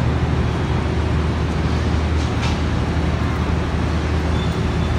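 Steady city street traffic noise: a continuous low rumble of passing vehicles, with a brief higher hiss about two seconds in.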